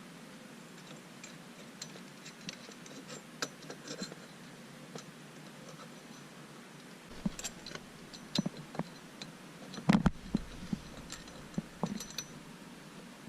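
Scattered small metallic clicks and taps from hand tools and parts being fitted to a steering wheel quick-release hub, with a few louder knocks about ten seconds in.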